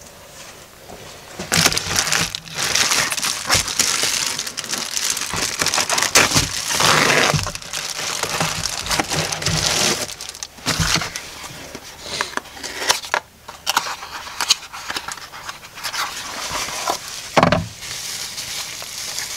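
A padded plastic mailer being torn open and handled, with dense crinkling and rustling for several seconds; then a small cardboard box is opened and the part inside unwrapped, with scattered crinkles and a sharper crackle near the end.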